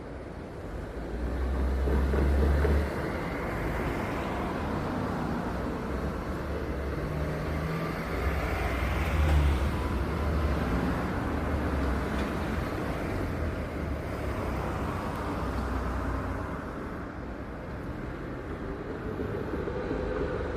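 Road traffic: motor vehicles passing with engine rumble and tyre noise, swelling loudest as vehicles go by about two seconds in and again near the middle.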